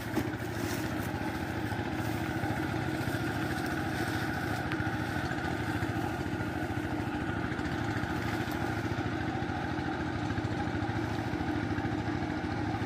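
A small engine running steadily at an even speed, a constant low drone with no change in pitch.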